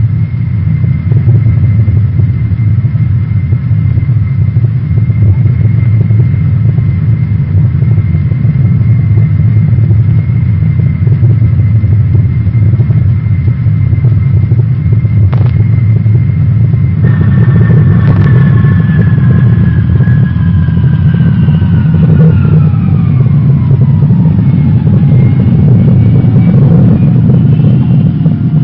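Lockheed C-5 Galaxy's jet engines in flight: a loud, steady rumble with a faint whine. About two-thirds of the way through, a second whine comes in and falls steadily in pitch.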